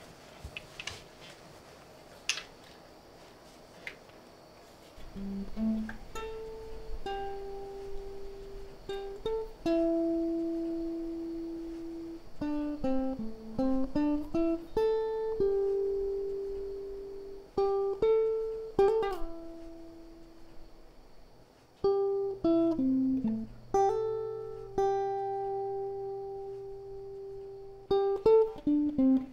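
Electric guitar playing a slow single-note melody of long held notes, with runs sliding downward a couple of times. Before it starts about five seconds in there are only a few faint clicks.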